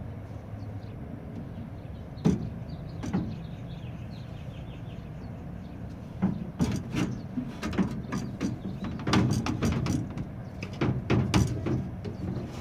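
Door glass and its metal sash knocking and clattering against a pickup door's frame and window rollers as it is lowered in and slid into place. Two single knocks early, then a quick run of clunks and rattles through the second half.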